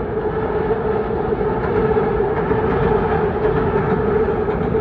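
Freight train rolling along, heard from on top of one of its cars: a loud, steady rumble of wheels on rail with a steady hum running through it.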